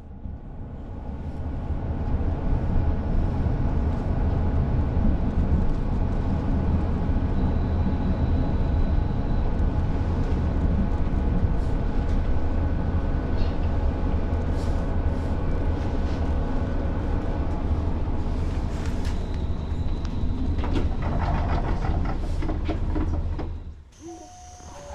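KiHa 40 diesel railcar under way, a steady low rumble of engine and wheels on rail with faint whining tones that fade out partway through and a few clicks later. The sound drops away sharply just before the end.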